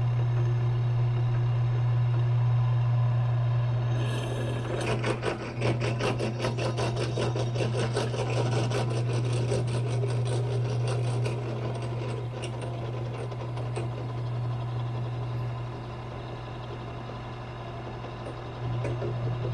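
A drill press motor running with a steady hum. From about four seconds in, the bit cuts through a metal axle tube with a rapid, chattering grind that fades after several seconds while the motor keeps running.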